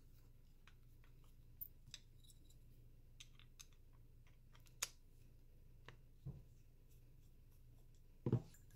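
Faint, sparse clicks and ticks of a Phillips screwdriver working the small screws that hold the solenoid on an EGR valve assembly, with a couple of low handling knocks.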